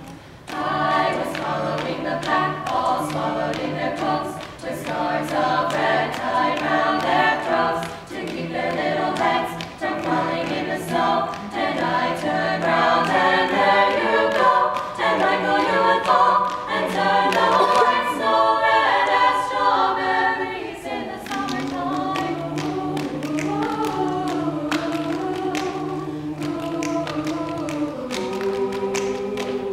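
Mixed-voice a cappella group singing in close harmony, with a steady low bass note under the shifting chords. Frequent sharp clicks of hand percussion from the singers run through it.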